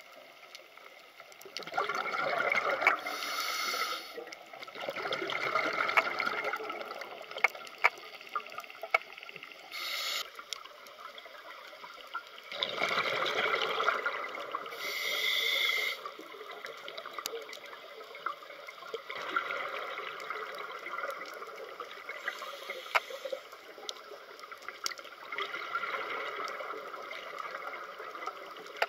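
Scuba diver breathing through a regulator underwater: exhaled bubbles gurgle in swells every few seconds, with a hiss of inhalation between them. Scattered sharp clicks are heard throughout.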